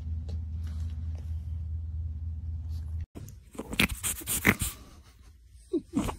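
A steady low hum behind a sleeping adult pug for about three seconds. After a sudden cut, a pug puppy gives several short, sharp yaps and a brief low growl near the end.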